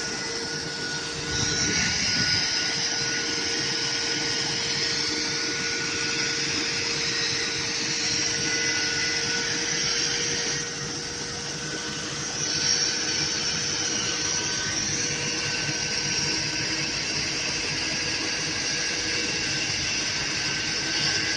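Cobra-I fire robot's water cannon discharging a wide fog spray: a steady hiss of rushing water with a steady mechanical drone underneath. The hiss swells about a second and a half in, dips briefly about eleven seconds in, and then returns.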